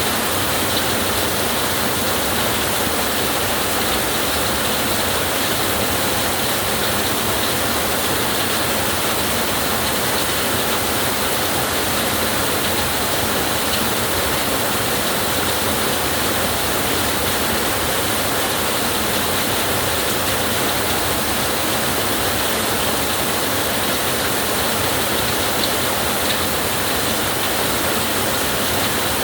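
Steady heavy rainfall, an even hiss that does not let up.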